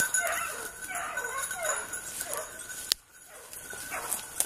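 Petit basset griffon vendéen hounds yelping in quick succession, short high calls that rise and fall. A sharp click about three seconds in, after which the yelps come back fainter.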